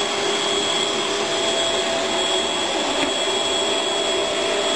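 Electric hand mixer running steadily, its beaters whisking chocolate cake batter in a bowl: an even motor whine over a hiss.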